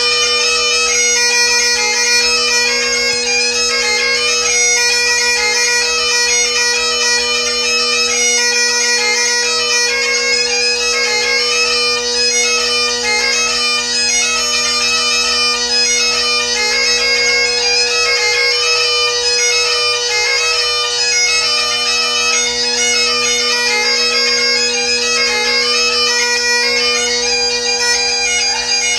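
Great Highland bagpipe played solo: steady drones sound under a fast-moving chanter melody.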